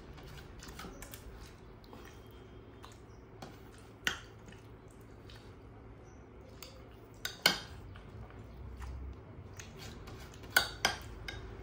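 A metal serving spoon clinking against a glass serving dish and steel plates as curry is scooped and served: a handful of sharp clinks, the loudest about halfway through and two close together near the end.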